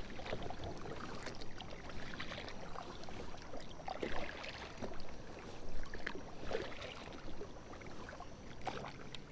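Kayak paddle strokes through a pond choked with lily pads: a series of light splashes and water swishes, roughly one every second or so.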